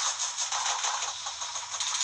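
Computer keyboard clattering in a dense, rapid rattle of keys as it is hammered.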